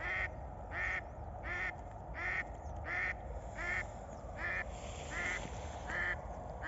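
Live decoy hen duck quacking in a long, even series, about one quack every three quarters of a second. This is the decoy calling to draw wild drakes in.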